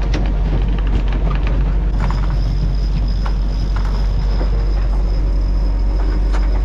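Strong wind buffeting the microphone on a sailing boat in rough seas: a loud, steady, deep rumble with scattered knocks. A faint, high, steady whine comes in about two seconds in.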